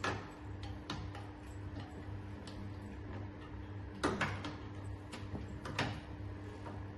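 Handpieces and hoses of a hydrofacial machine being handled and set into their plastic holder rack: scattered clicks and knocks, the loudest about four seconds in and again near six seconds, over a steady low hum.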